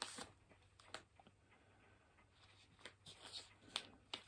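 Near silence: room tone with a few faint, brief rustles and taps of paper being handled.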